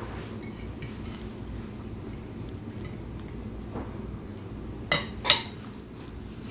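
A knife and fork clinking against a plate: a few faint ticks, then two sharp clinks about five seconds in, half a second apart.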